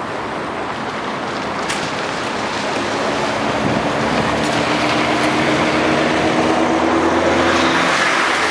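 A motor vehicle's engine running with a steady hum and wind noise, growing slowly louder.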